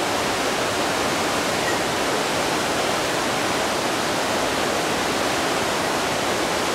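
Fast river current rushing steadily through rapids, an even, unbroken rush of water.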